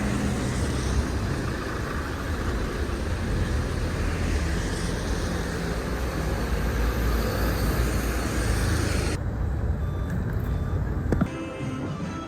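Steady low rumble of moving vehicles, the sound turning duller about nine seconds in. A sharp click comes near the end, then faint music starts.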